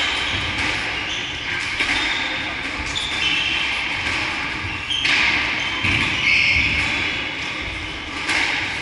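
Echoing knocks of a squash ball being bounced and struck in a squash court, every second or two, with high squeaks in the middle; a serve is hit near the end.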